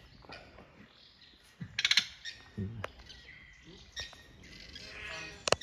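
Birds chirping and calling, with a quick rattling run of clicks about two seconds in and a sharp click near the end.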